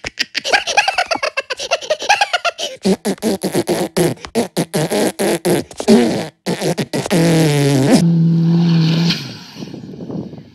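Minion cartoon voices babbling and blowing rapid fart and raspberry noises, ending in a falling squeal that runs into a steady buzzing fart about a second long. About nine seconds in the sound drops to a much quieter rough background noise.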